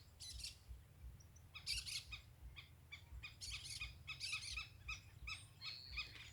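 Birds calling: a string of short, high chirping notes, scattered at first and coming thick and fast from about halfway through.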